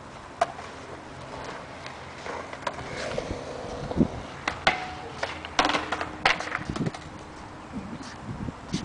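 Skateboards on concrete: irregular sharp clacks and knocks with rolling wheels, busiest from the middle of the stretch onwards.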